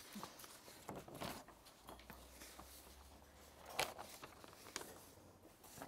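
Faint rustling of loose paper sheets being handled and turned over, in a few brief rustles, the clearest nearly four seconds in.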